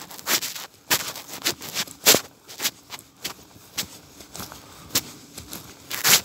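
Walking sounds of a person striding barefoot through wet grass in a rain jacket: short, soft swishes, about two a second, in an even rhythm.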